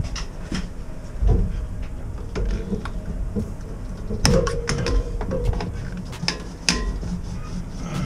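Hand tools and pipework being handled at a boiler's relief-valve piping: irregular clicks, knocks and clatter, with a short squeak about four seconds in.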